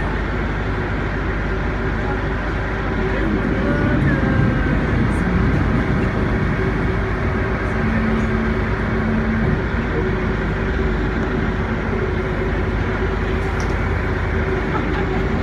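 Motor yacht under way: a steady engine hum with a constant rushing noise of wind and water past the boat, and faint voices of passengers now and then.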